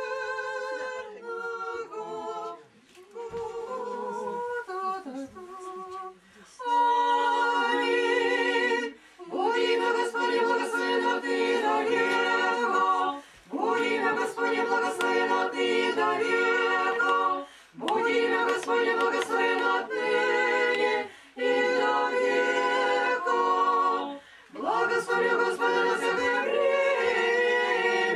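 Orthodox church choir singing a cappella in repeated phrases a few seconds long, with short breaths between them. It is quieter at first and grows fuller and louder about six seconds in.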